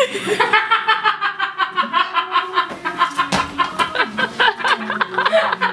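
Young women laughing hard in quick, rhythmic bursts after a fall from a top bunk, with a single thump about three seconds in.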